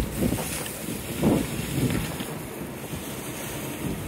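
Kobelco excavator running steadily while its bucket works the demolition rubble, with about three knocks and crunches of brick debris in the first two seconds. Wind on the microphone.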